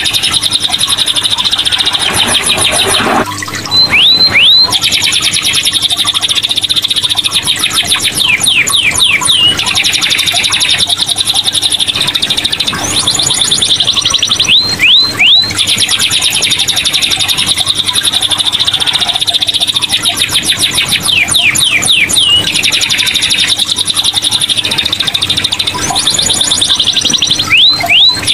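Domestic canary in full song: long runs of very fast rolling trills and rising whistled notes, broken by a few short pauses.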